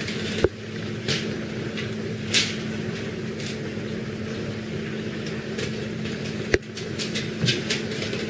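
A steady low hum, with short crinkles of aluminium foil every so often as hands drop crumbled raw ground beef onto it.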